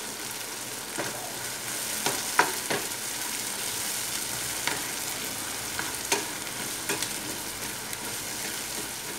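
Chopped onions, tomatoes and garlic sizzling in oil in a nonstick frying pan, stirred with a spatula that scrapes and taps against the pan several times at irregular intervals. This is the sautéing of the onion-tomato base.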